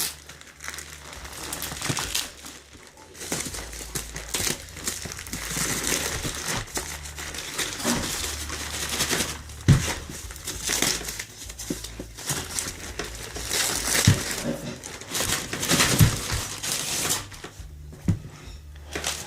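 Packaging crinkling and rustling as a pair of motorcycle boots is unwrapped and handled, irregular throughout, with a few sharp taps or knocks.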